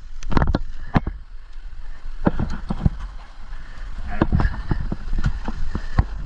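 Motorcycle being worked slowly across a rocky creek crossing: a low rumble with many irregular knocks and clatters.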